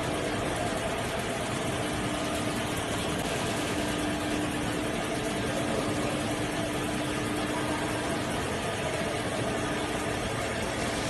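Multi-wire paper taping machine running, its taping heads wrapping insulating paper onto flat copper wire for transformer windings: a steady, even machine noise with a constant hum-like tone.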